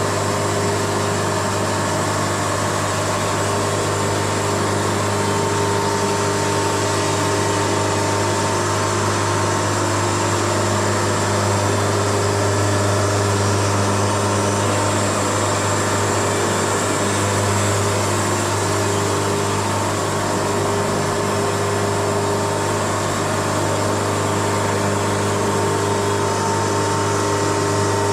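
Wood-Mizer LT70 sawmill running steadily, a constant low hum with steady higher tones over a broad mechanical noise.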